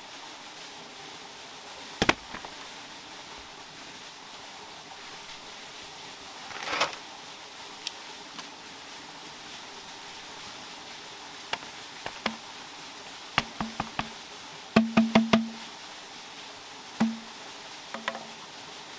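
Irregular sharp wooden knocks, several with a brief low hollow ring, including a quick run of four or five strokes in the last third, over a steady background hiss.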